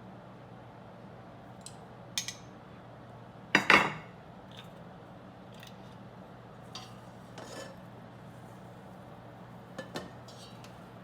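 Kitchen utensils and dishes clinking and knocking against each other a few times, the loudest knock about three and a half seconds in, over a steady low hum.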